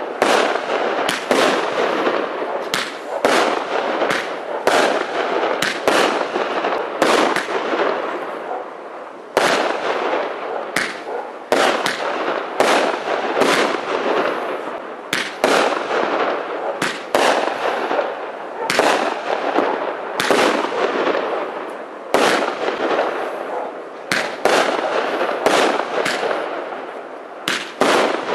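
SM9805 Thunder Rain consumer fireworks cake firing shot after shot, about one or two sharp reports a second, with a dense crackling rush filling the gaps between them. The firing eases briefly a few times before picking up again.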